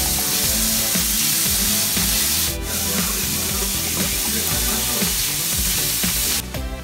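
Chopped onions sizzling in hot oil in a nonstick frying pan as they are sautéed; the sizzle stops abruptly near the end.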